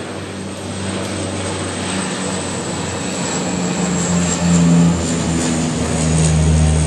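Twin turboprop engines of a Canadair amphibious water bomber flying low past, a steady propeller drone that swells as the plane comes close and is loudest about two-thirds of the way through. A thin high turbine whine sits above it and sinks slightly in pitch as the plane goes by.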